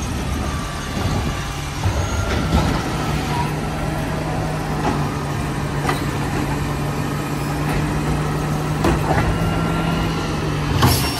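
Garbage truck running, its engine settling into a steady raised speed about two seconds in, with occasional knocks and clanks.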